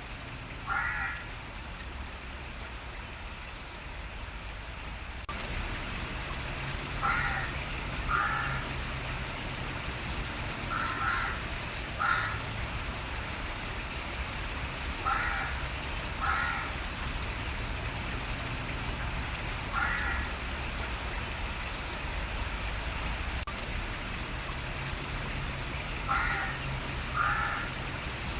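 A crow cawing about ten times, mostly in pairs a second apart with pauses of several seconds between, over the steady rush of running water. A low hum joins about five seconds in.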